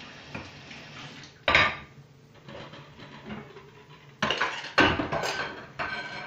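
Dishes and utensils clattering in a kitchen sink during washing-up, with one sharp clank about a second and a half in and a run of clanks near the end.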